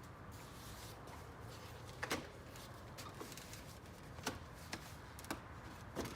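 A few light, sharp clicks and taps of plastic parts being handled, spaced about a second apart, as anchor clips are fitted into the holes of a car's front grille.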